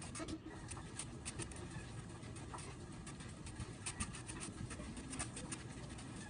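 Stationary exercise bike being pedalled: a steady low whir from the flywheel and drive, with scattered light, irregular clicks from the pedals and frame.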